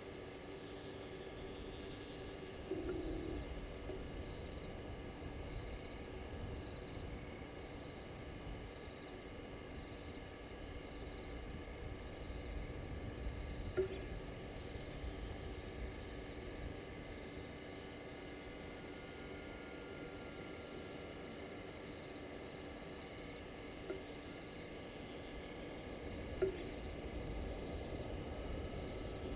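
Night chorus of crickets and other insects: a steady high trill, with a shorter chirp repeating every second or two.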